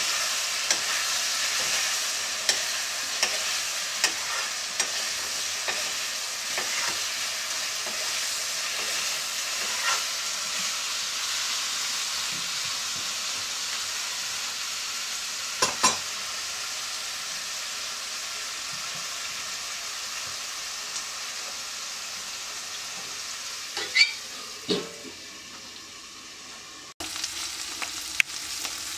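Bitter melon frying in oil in a steel wok, sizzling steadily, while a metal spatula scrapes and taps against the pan. There are a few louder knocks of the spatula on the wok, around a third of the way in and again past the three-quarter mark.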